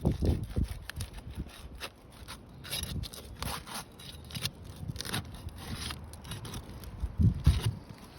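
Asphalt roof shingle tabs being pried up off their sealant strip: irregular scraping and crackling as the adhesive seal breaks, with a couple of low thuds near the start and about seven seconds in.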